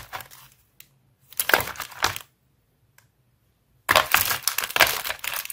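Loose electronic components (electrolytic and film capacitors and other salvaged parts) rattling and clattering in a plastic parts box as a hand rummages through them. There is a short spell about a second in and a longer one from about four seconds in.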